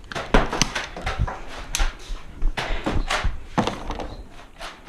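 A string of irregular sharp knocks and thumps, a dozen or so over a few seconds.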